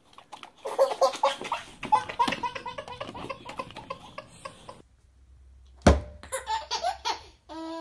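A baby laughing hard in a long run of belly laughs that stops abruptly about five seconds in; then a sharp click and a second baby's short bursts of laughter.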